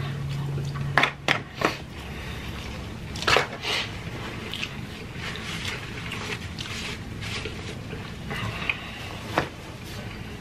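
Close-miked mukbang eating sounds: wet chewing and mouth smacks with scattered sharp clicks and taps, opening with a low hummed 'mmm' of enjoyment for about the first second.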